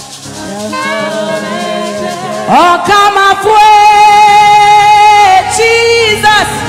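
A single voice singing a slow worship song over instrumental backing, with wavering sustained notes; about two and a half seconds in it rises sharply into a long held note that lasts some three seconds.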